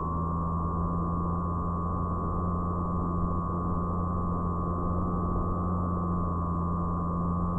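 Electric motor and propeller of an FPV fixed-wing model plane running at steady throttle in flight: a held high whine over a low drone, with airflow noise, all sounding dull, with nothing bright in it.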